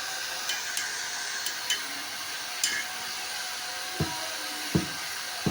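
A small high-speed power tool running steadily, with scattered sharp clicks and then three dull knocks about a second apart near the end.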